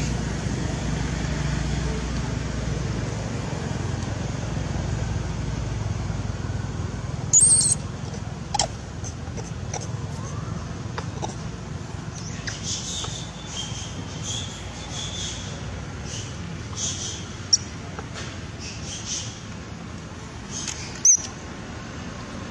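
Newborn macaque squeaking: scattered short, high-pitched squeals and chirps, the loudest about seven seconds in and again near the end, over a low background rumble in the first few seconds.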